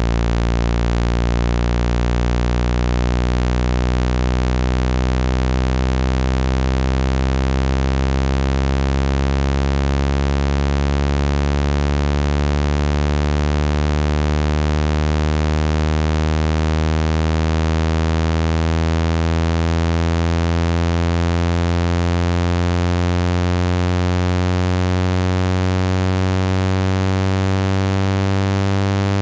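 Synthetic speaker-cleaning tone, the kind played to shake water and dust out of a phone speaker: a loud, low, buzzing tone full of overtones, rising slowly and steadily in pitch.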